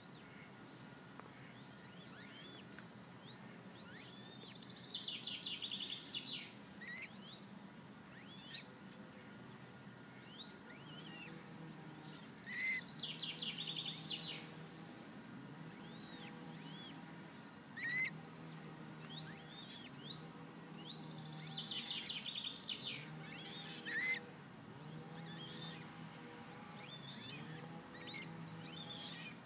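Small birds chirping and singing: short high calls throughout, with a quick trilled song phrase repeated about every eight or nine seconds and a few sharper, louder calls. A low steady hum sits underneath from about a third of the way in.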